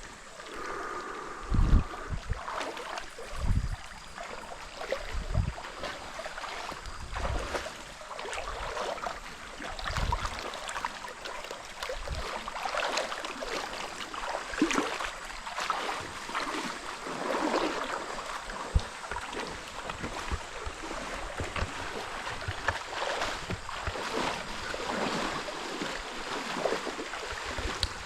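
Stream water flowing and splashing, with a few low thuds in the first ten seconds.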